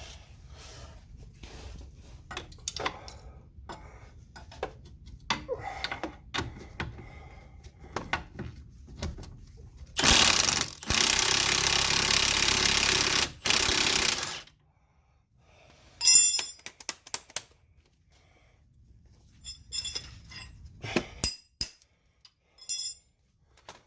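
Aerosol can of penetrating lubricant sprayed in one loud, steady hiss of about four seconds, broken twice for an instant. Scattered clinks and knocks of hand tools on metal come before and after it.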